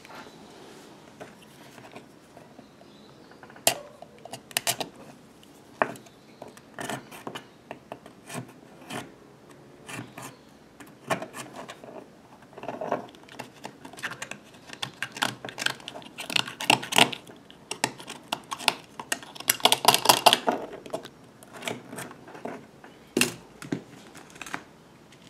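Hand tools and a short PVC plastic pipe piece being handled and worked on a workbench: irregular clinks, knocks and short scrapes, coming in clusters, busiest about three-quarters of the way through.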